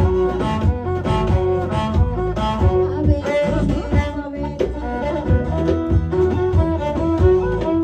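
Live Ethiopian band music: drums beating a steady rhythm under a held melody line.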